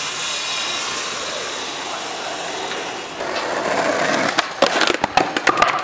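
Skateboard wheels rolling on street asphalt with a steady gritty noise that grows louder about three seconds in, then a rapid run of sharp clacks and knocks over the last second and a half as the board hits the curb edge and clatters.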